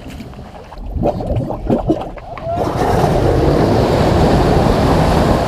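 Off-road 4x4 ploughing through a muddy puddle: water surging and splashing, a few scattered splashes at first, then loud and steady from about two and a half seconds in.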